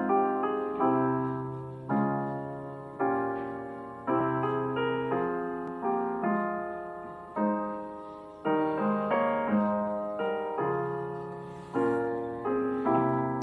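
Slow, gentle solo piano music, notes and chords struck about once a second and left to ring and fade.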